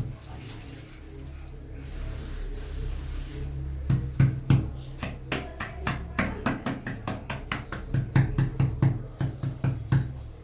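Rhythmic patting: a quick run of soft thumps, about three a second, beginning about four seconds in after a few seconds of soft rubbing hiss.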